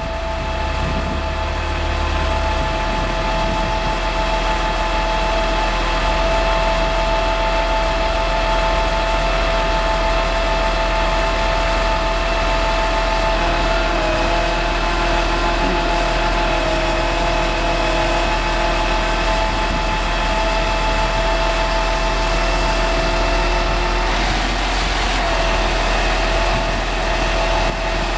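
International 4700 bucket truck running steadily, a low engine rumble with a steady whine over it; the sound shifts slightly about 14 and again about 24 seconds in.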